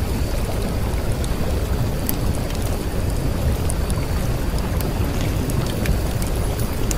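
Steady rain with a continuous low rumble and scattered sharp ticks, like a thunderstorm ambience track.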